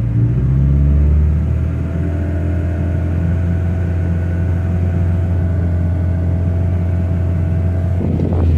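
Honda B16A2 1.6-litre DOHC VTEC inline-four in a 1999 Civic Si running steadily at idle, with a brief flare of noise about eight seconds in. The owner reports a misfire on all four cylinders with a flashing check engine light.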